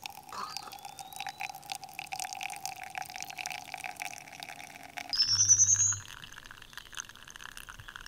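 Water being poured for pour-over coffee: a steady stream of liquid, with a brief, louder rising tone about five seconds in as the vessel fills.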